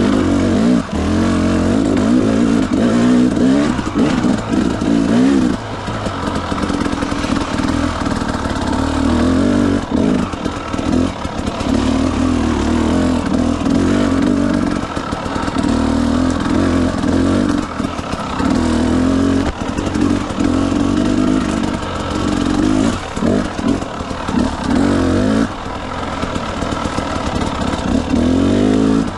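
Motorcycle engine revving up and down as it is ridden, its pitch repeatedly rising and falling, with short dips where the throttle is rolled off, several of them in quick succession late on.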